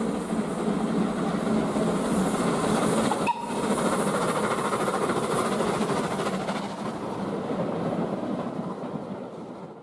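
A small steam tank locomotive hauling passenger carriages running past, a steady rumble and clatter of wheels on the rails that fades away near the end.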